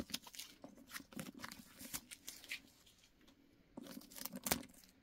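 Handling noise from a leather handbag and its small metal zipper padlock: light rustling and scattered clicks, with a sharper click about four and a half seconds in.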